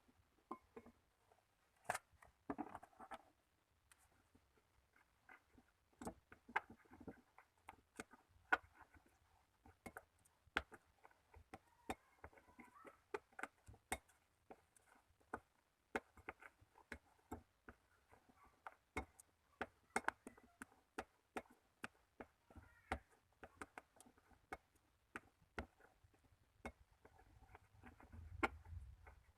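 Slime being squeezed and played with by hand, giving many small sharp clicks and pops at an irregular pace of several a second, with a faint soft squelching between them.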